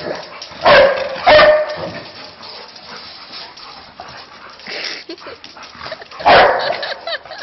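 Pet dog barking several times: two loud barks close together about a second in, a fainter one near five seconds, and another loud bark a little after six seconds.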